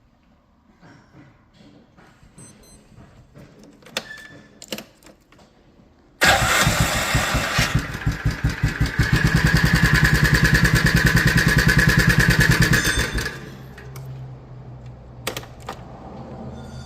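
A 2004 Can-Am Outlander 400's single-cylinder engine comes in loudly and suddenly about six seconds in and runs with a rapid, even rattle for about seven seconds, then falls to a lower steady hum. The racket is the cam chain slapping: it is stretched past what the maxed-out tensioner can take up. Faint clicks come before the engine runs.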